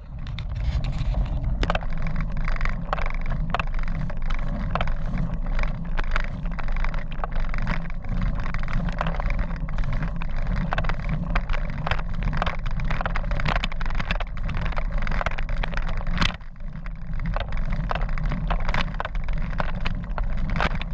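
Steady low rumble of wind and road on the microphone of a camera riding along on a moving road bike, with frequent sharp clicks and knocks throughout.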